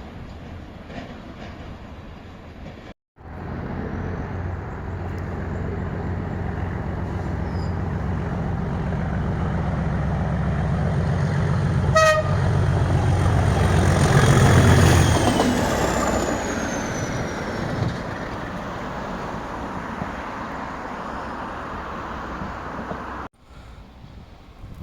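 Train passing, its engine rumble growing louder and peaking about fifteen seconds in, with one short horn toot about twelve seconds in.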